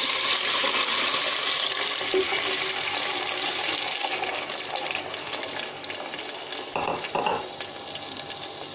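Washed rice and its soaking water poured into hot oil with fried onions in a pan, setting off a sudden hissing sizzle with fine crackling that is loud at first and gradually dies down.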